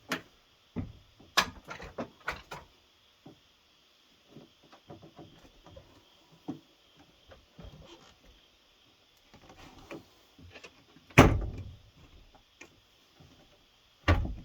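Scattered clicks and knocks from a pickup truck's interior door panel being handled and pressed against the door, its retaining clips being seated. There is a loud thump about eleven seconds in and another near the end.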